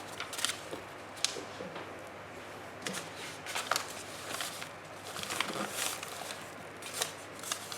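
Paper being handled: scattered short rustles, taps and clicks as a journal page is picked up and worked on.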